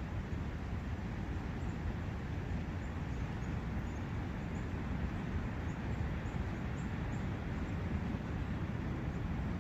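Forest ambience: the steady rushing of a brook and wind in the trees, with faint high bird chirps scattered through it.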